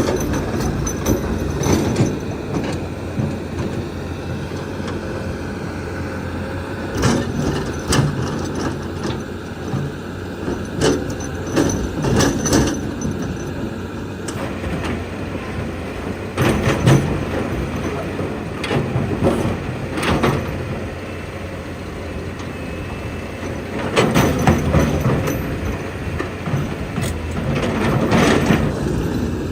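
Toy RC construction vehicles running: a steady whir of small electric motors and gearboxes with repeated plastic clicks and clatter, louder in several stretches.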